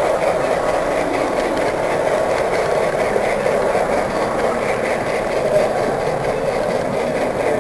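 Model train running along the layout's track, heard from a camera riding on the train: a steady running noise of wheels on rail and the drive motor.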